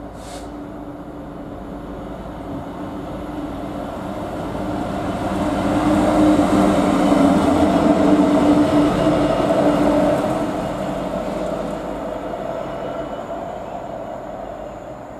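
Colas Rail Freight Class 66 diesel-electric locomotive, its EMD two-stroke V12 engine, passing through a station. The engine drone and wheel noise build as it approaches, are loudest about halfway through as it passes close by, then fade as it runs away.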